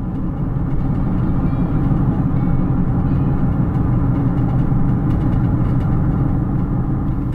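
Steady road and wind noise of a moving car, heard from inside the cabin: a loud, even rumble.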